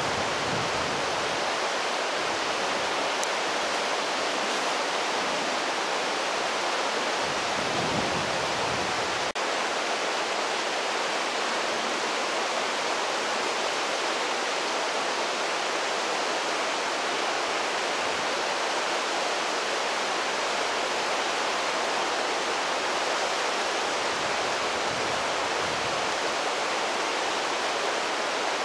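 River rapids rushing: a steady, even hiss of fast-flowing water.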